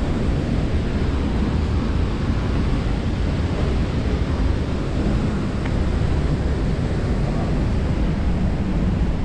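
Steady rush of falling water from a waterfall, an even noise heaviest in the low end.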